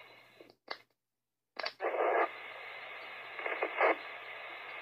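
Emergency scanner radio between dispatch transmissions: the steady hiss and low hum of an open channel. The hiss cuts out just after half a second in, then comes back about a second and a half in with a crackle as the channel opens again, with a few short crackles later on.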